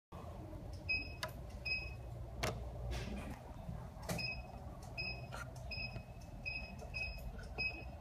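Fusion splicer giving short high electronic beeps, about ten at uneven intervals, over a low steady hum, with a few sharp clicks as its fiber-clamp area is handled.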